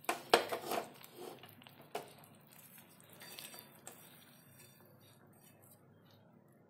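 Clinks and knocks of kitchenware: a glass pan lid being set aside and a wooden spatula moving boiled drumstick pieces in a kadhai. A quick cluster of clinks in the first second, then single knocks about two and four seconds in.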